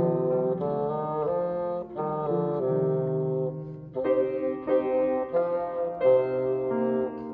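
Bassoon playing a solo melody in long held notes, accompanied by grand piano. The phrase breaks briefly about four seconds in, and then both come back in stronger.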